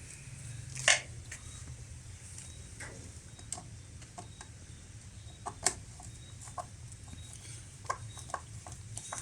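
Scattered small clicks and taps, with two sharper clicks about a second in and near the middle, as the oil screw with its new gasket is fitted and screwed into the outboard's lower unit. A steady low hum runs underneath.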